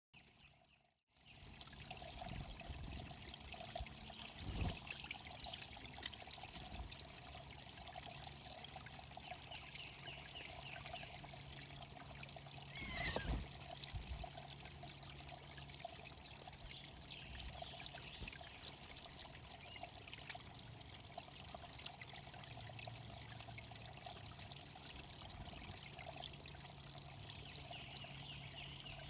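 Water steadily trickling and pouring into a small bird pond, with one brief louder sound about halfway through.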